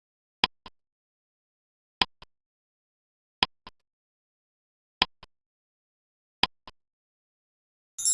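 Clock-style tick-tock of a quiz countdown timer: five double ticks, each a sharp tick followed by a softer one, about every one and a half seconds.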